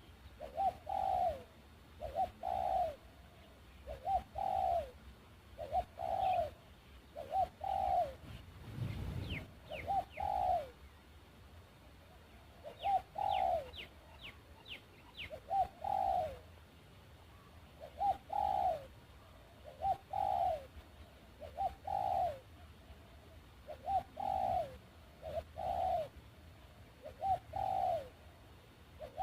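A dove cooing over and over, a short phrase every second or two. Faint high chirps of small birds come in twice, and there is a low thump about nine seconds in.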